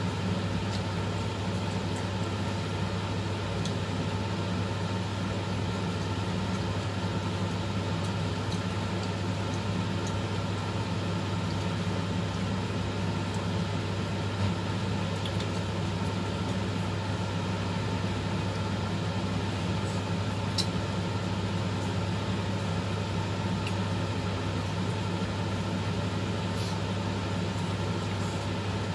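A steady, unchanging low machine hum, with a few faint clicks over it.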